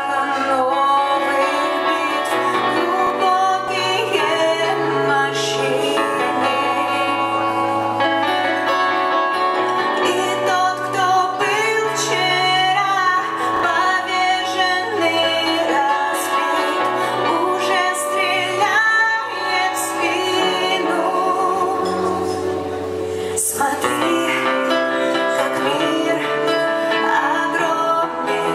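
A band playing a song live, with a woman singing over sustained instruments and a bass line that moves in steps.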